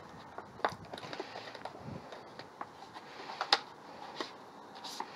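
Plastic and card packaging of a new wiper blade being handled and opened: scattered clicks and crackles, with a sharper snap about three and a half seconds in.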